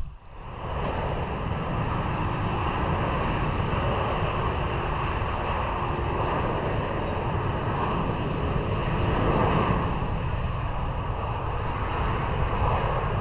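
Jet airliner engines heard as the aircraft passes: a steady rushing noise that swells slightly about nine seconds in.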